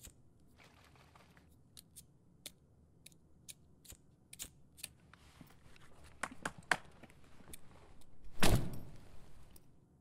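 A hand picking through dry wood splinters and rubble: scattered small clicks, snaps and scrapes that grow busier after about four seconds, with one louder rustling thump near the end.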